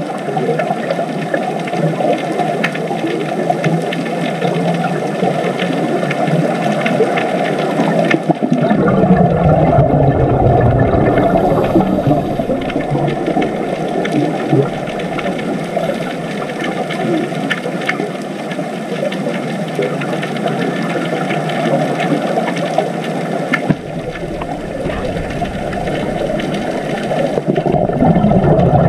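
Muffled underwater noise: a steady, dull rushing rumble with faint scattered clicks, its character changing abruptly about eight seconds in and again about two-thirds of the way through.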